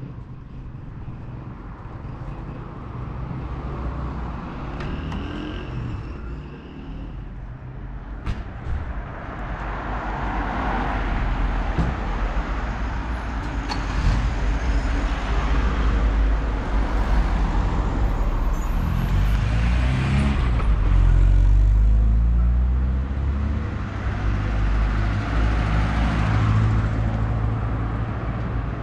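Motor vehicle engines running amid road traffic noise, swelling several times as vehicles pass or speed up.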